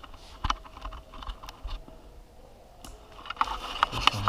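Irregular clicks and knocks with some rustling, sparse at first and coming thick and fast near the end: handling noise from an action camera being moved and turned around in the hand.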